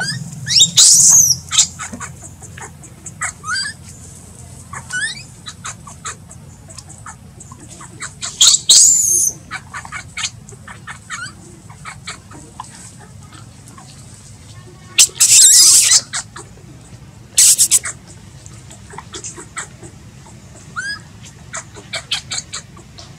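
Newborn baby macaque crying: several loud, very high-pitched shrill squeals a few seconds apart, with softer short rising whimpers in between.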